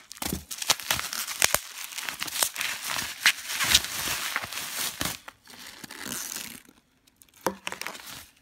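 Bubble wrap crinkling and crackling, with foam packing peanuts rustling, as a wrapped bottle is lifted out of a shipping box. The crinkling runs busily, dies away about two-thirds of the way through, and one short rustle comes near the end.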